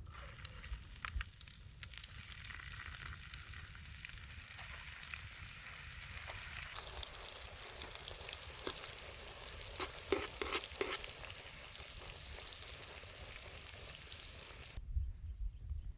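Food frying in hot oil in a pan, a steady sizzle with a few sharp utensil clicks about ten seconds in. The sizzle cuts off suddenly near the end, giving way to a low rumble.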